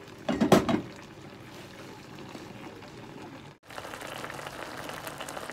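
Pot of fish simmering in broth, a steady crackling, bubbling hiss. A short loud clatter comes about half a second in, and the sound cuts out briefly a little after three and a half seconds, coming back as a brighter, busier bubbling.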